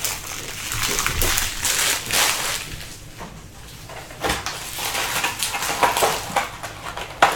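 Foil trading card pack wrappers crinkling and rustling as a stack of packs is handled, with scattered clicks and a sharp tap near the end.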